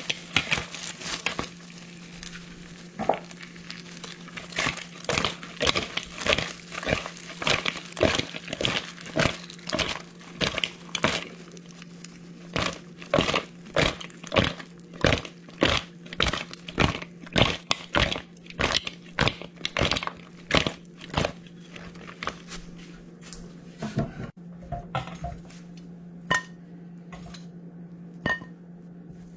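Metal kitchen tongs clacking and scraping in a bowl as sauced chicken wings are tossed, about one or two knocks a second. Near the end come a few sparser taps with a short ring as a wing is set on a plate.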